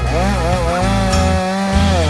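Two-stroke chainsaw cutting through the base of a tree trunk. Its engine pitch dips and recovers over and over as the chain bites into the wood. Background music with a bass line plays under it.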